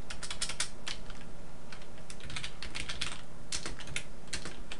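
Computer keyboard keys clicking as a command is typed, in short uneven runs of keystrokes with brief pauses between them.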